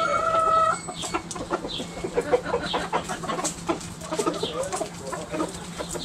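Backyard chickens clucking. A rooster's long held crow ends within the first second, followed by a steady stream of short clucks from several hens.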